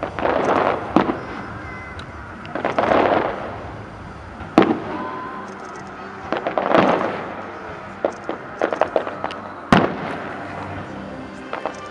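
Fireworks display: sharp bangs of shells bursting, the loudest about four and a half and nearly ten seconds in, with spells of crackling bursts in between and a quick run of pops.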